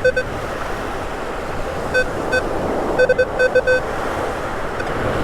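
Metal detector giving short beeps of the same pitch as the coil passes over a buried target: a couple at the start, two about two seconds in, and a quick run of several about three seconds in. Steady surf and wind noise underneath.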